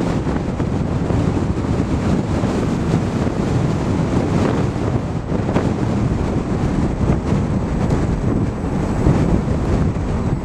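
Strong wind buffeting the microphone: a loud, steady rumble with no break.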